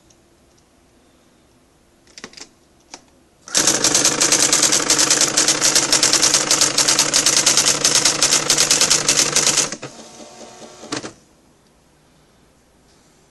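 Nakajima AX-65 electronic daisy-wheel typewriter: a few single clicks, then a fast, even run of strikes lasting about six seconds. A quieter mechanical whirr follows and ends in a click.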